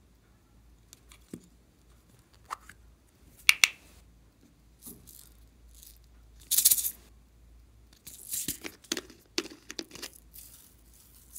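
Hard plastic toys and a plastic bottle handled close to the microphone: scattered clicks and taps, with two sharp clicks about three and a half seconds in. Near the end comes a quick run of short shakes as glitter sequins are tipped out of the bottle onto slime.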